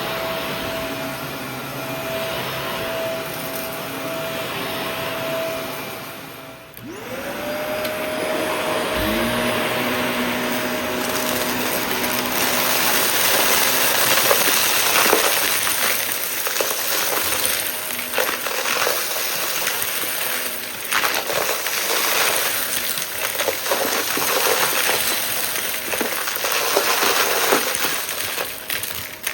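Shark vacuum cleaner running. About seven seconds in its motor briefly cuts out and spins back up with a rising whine. From about twelve seconds on, a dense crackling and rattling of small debris being sucked up runs over the motor noise.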